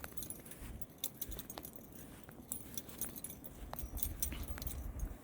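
Wind buffeting the microphone as uneven low rumbling, with many scattered light clicks and rattles from handling the camera while walking.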